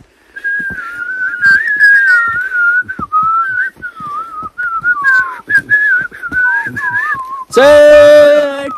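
A person whistling a wavering tune while walking, with faint footfalls beneath it. Near the end the whistling gives way to a loud, held voice note about a second long.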